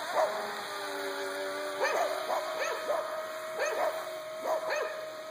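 A dog barking repeatedly in short barks, about one every half second to a second, over a steady high whine.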